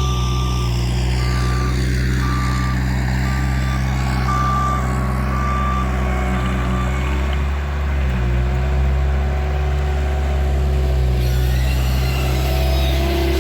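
Bobcat loader's diesel engine running steadily at working revs, with its reversing alarm beeping for about the first seven seconds and then stopping. The engine dips briefly about eight seconds in.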